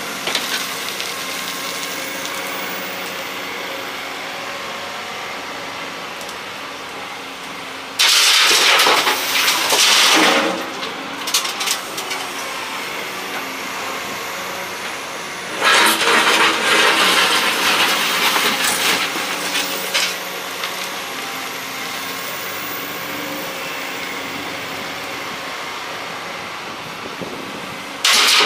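Excavator's diesel engine running steadily, with loud spells of soil and rubble pouring and clattering into the truck's bed: one about eight seconds in lasting a couple of seconds, a longer one from about sixteen seconds in, and another starting at the very end.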